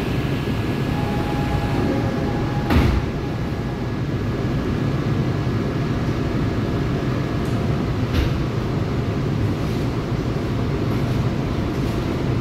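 Seoul Line 4 subway train running, heard from inside the passenger car: a steady low rumble with a thin whine that fades out about seven seconds in. Two sharp clunks come from the car, about three seconds in and again about eight seconds in.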